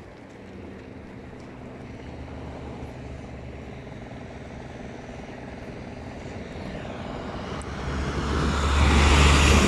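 Heavy truck engine approaching along the road: a steady low drone that grows gradually louder, then swells sharply near the end as the truck draws close.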